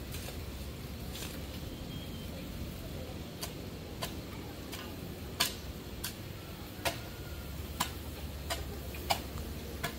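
Sharp clicks or knocks, roughly one a second from about three seconds in, over a steady low rumble.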